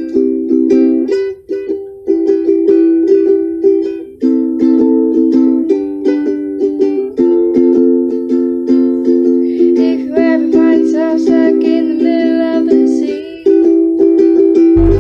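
Ukulele strummed in chords, with brief breaks between phrases; a voice sings along for a few seconds about two-thirds of the way through.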